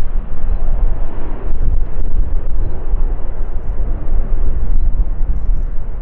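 A C-130H Hercules flying at a distance, its four turboprop engines giving a steady, noisy drone with a heavy low rumble.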